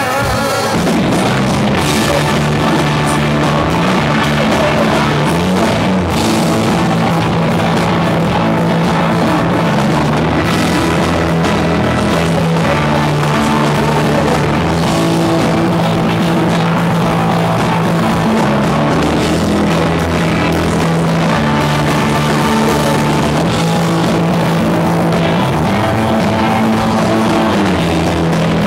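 Live rock band playing at full volume: electric guitars, including a Telecaster and a Les Paul, over a drum kit, with a bass line that moves between notes.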